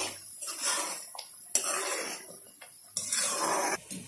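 Metal spoon stirring and scraping thick onion-tomato gravy around a metal kadai in uneven strokes, with a few sharp clinks against the pan; the noise stops abruptly near the end.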